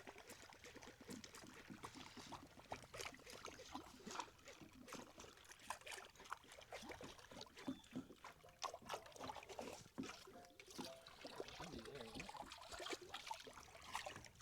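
Faint water lapping and trickling against a small boat's hull, with scattered small irregular clicks and splashes.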